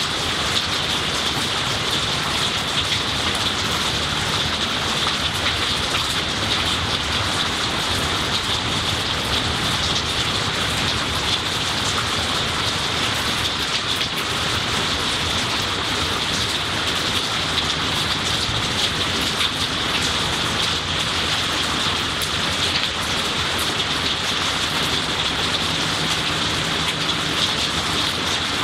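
Steady rainfall on tree leaves and the ground, an even hiss scattered with many small ticks of individual drops.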